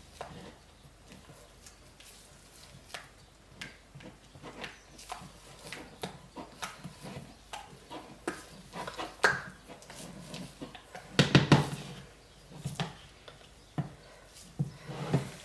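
Utensils and soaping containers knocking and scraping as green mica is mixed into cold process soap batter: scattered light clicks and taps, with a louder cluster of knocks about 11 seconds in.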